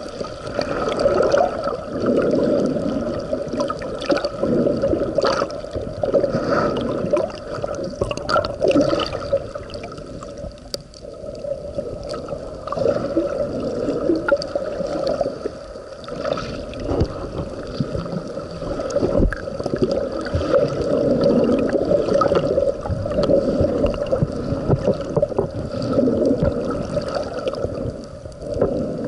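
Muffled water sloshing and gurgling heard from just below the sea surface, swelling and fading every couple of seconds, with occasional small clicks.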